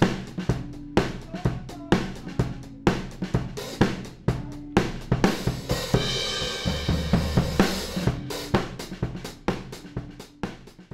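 Recorded drum kit playing a steady groove of kick, snare and hi-hat, run through the Weight Tank WT-COMP compressor as a saturation demo. A denser wash of cymbals comes in around the middle, and the drums die away just before the end.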